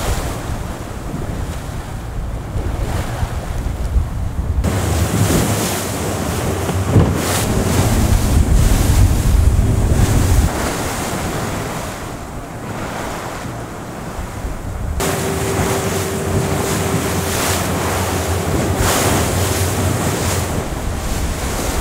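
Wind and rough water rushing past a Class40 racing sailboat sailing fast and heeled, with wind buffeting the microphone. The sound changes abruptly about five seconds in and again about fifteen seconds in.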